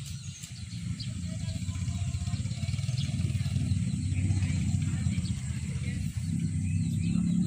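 Low rumble of a motor vehicle's engine running, slowly growing louder.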